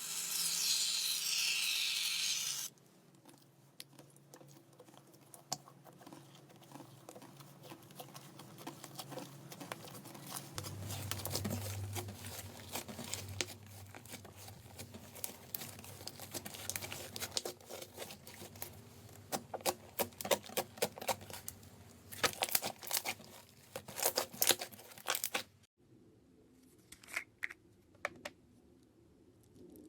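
Slime being squished and stretched by hand, giving many small crackling, popping clicks that come thick and fast, then fewer and fainter near the end. A loud hiss fills the first couple of seconds.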